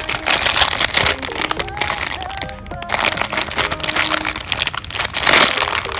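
Close rustling and crinkling handling noise in bursts, loudest about five seconds in, over background music.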